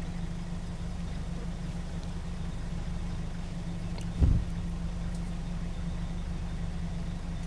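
A vehicle engine idling steadily, with a single short low thump about four seconds in.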